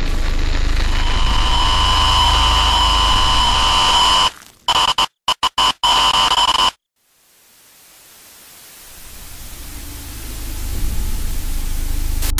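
Loud electronic static hiss with a wavering high whine and a low hum, a horror-style glitch effect. About four seconds in it stutters on and off several times, cuts out completely, then the hiss slowly swells back up.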